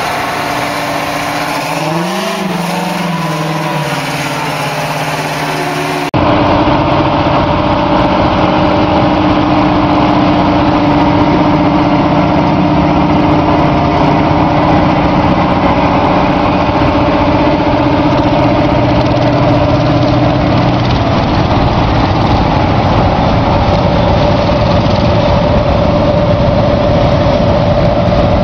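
Big Bud 16V-747 tractor's Detroit Diesel V16 two-stroke diesel engine running, revving up briefly and settling about two seconds in. After an abrupt cut it runs louder and steady as the tractor drives.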